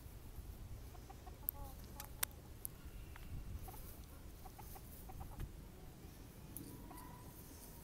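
Chickens clucking in short, scattered calls, with a few sharp clicks about two seconds in.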